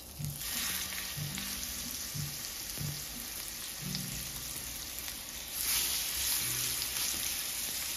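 Seasoned steak laid into a hot, oiled cast-iron skillet, sizzling at once as it hits the pan. The sizzle gets louder a little past halfway, when a second steak goes in.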